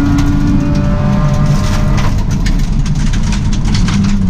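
Subaru rally car heard from the cabin at speed on a gravel stage: the engine note holds steady, then falls away about a second in, over constant road and gravel noise. Sharp ticks come in from about two seconds in.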